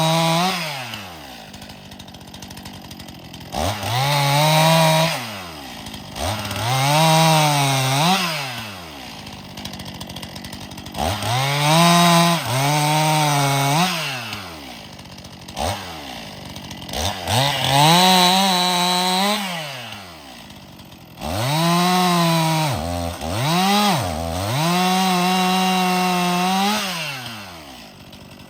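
Stihl MS261 C-M two-stroke chainsaw bucking firewood: it is revved to full throttle and held through a cut, its pitch sagging under load, then drops back to idle, about six times over.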